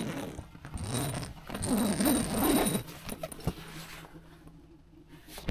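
A tent door zip being pulled open in a few runs over about three seconds, followed by a single click.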